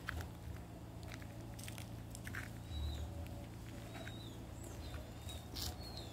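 Footsteps and scattered taps on dry dirt, with short high bird chirps several times in the second half over a steady low outdoor rumble.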